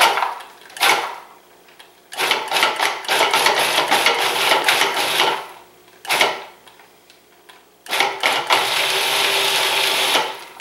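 Food processor chopping herbs, garlic and lemon zest in pulses: two quick pulses, a run of about three seconds, another quick pulse, then a run of about two seconds.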